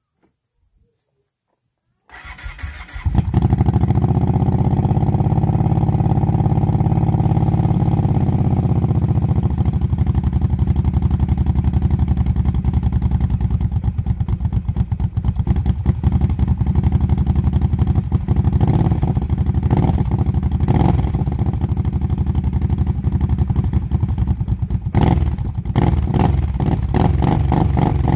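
Kawasaki Brute Force 750 ATV's V-twin engine through a Pro Circuit aftermarket exhaust, cranked by the starter and catching about two seconds in. It idles higher at first, then settles to a steady idle. It is revved in several short blips in the last third.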